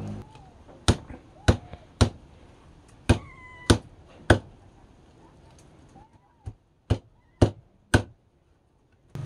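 Sharp knocks in two runs: six in the first half, then four more close together after a short pause. One of them rings briefly like metal.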